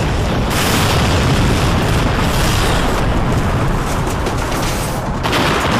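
Explosion sound effects: a long, loud, rumbling blast that surges suddenly about half a second in and again near the end.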